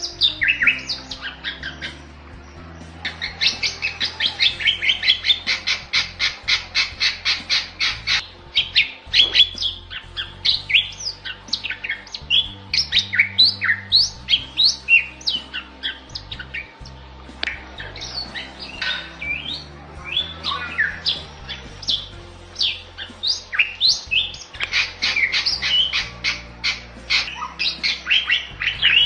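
Recorded songbird song of the kind used as fill-in training material for white-rumped shamas. It opens with a fast run of evenly repeated sharp notes lasting several seconds, then turns to varied whistles, chirps and quick up-and-down sweeps, with another fast run near the end.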